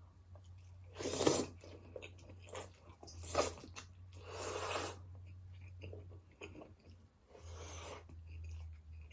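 A person chewing and crunching food close to the microphone, with several louder crunchy bites among quieter chewing.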